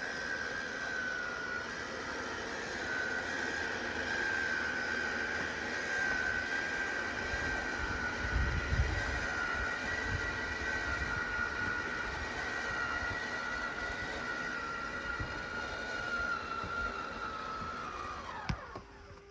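RV slide-out motor running as a slide-out room extends: a steady high whine, with a low rumble about halfway through, that falls in pitch and stops with a click near the end as the slide reaches full open.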